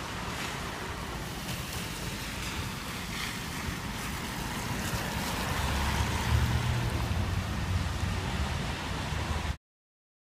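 Traffic on a wet road: a car drives past with its tyres hissing on the wet asphalt, its low rumble growing louder about six seconds in. The sound cuts off suddenly near the end.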